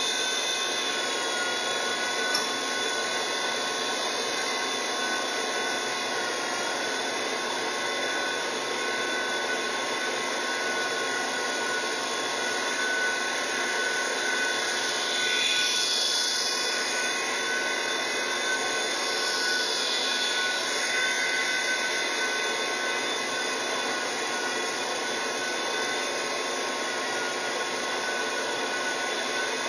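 WLtoys V911 micro RC helicopter in flight, its small electric motors and rotor giving a steady whirring that swells briefly about halfway through. It is carrying a 5-gram nickel as payload and flies well with it.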